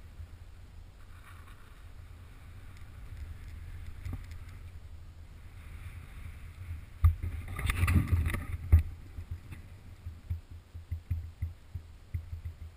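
Low wind rumble on the microphone of a camera high in a moving pine, with scattered knocks. A louder stretch of noise and knocks comes about seven to nine seconds in.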